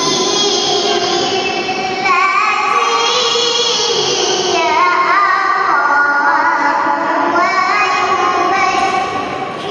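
A young girl reciting the Quran in tilawah style: one voice chanting long melodic phrases with wavering, bending ornaments. There is a short break and a fresh phrase about two seconds in.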